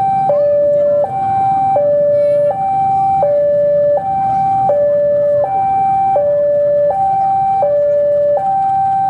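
Two-tone electronic warning signal alternating steadily between a high and a low tone, each held about three quarters of a second. Beneath it is the low running of a diesel locomotive.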